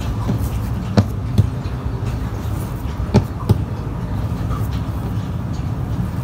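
A plastic bench scraper knocking against the countertop as it chops bread dough into pieces, four sharp taps in two close pairs, about a second in and about three seconds in. Under it a steady low hum runs throughout.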